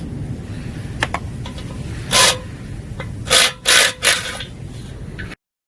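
Nuts and bolts on a combine's threshing screen being loosened with a hand tool: a few short metallic scraping, rasping strokes over a steady low rumble. It cuts off suddenly near the end.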